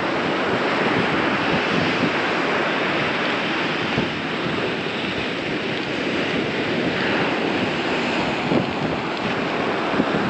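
Surf breaking and washing on a sandy beach, a steady rushing noise, with wind buffeting the microphone.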